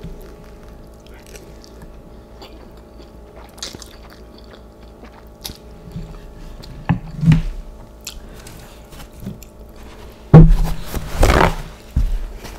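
A person eating instant noodles close to the microphone: chewing and biting with small wet clicks, and louder eating noises about seven seconds in and again for over a second near the end.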